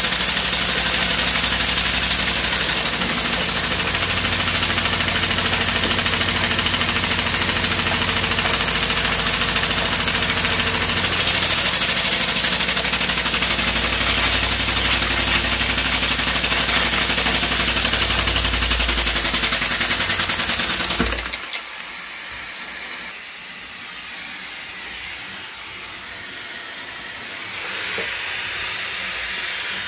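Homemade oscillating-cylinder steam engine, built from a syringe on a wooden frame, running fast on steam: a dense, steady hiss of escaping steam over the whirr of the spinning flywheel. About 21 seconds in the sound drops suddenly to a softer steady hiss.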